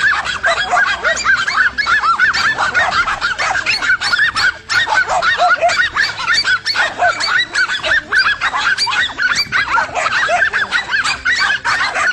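Several dogs barking and yapping nonstop in a rapid, high-pitched chorus, many short calls a second, as they hold a monitor lizard at bay.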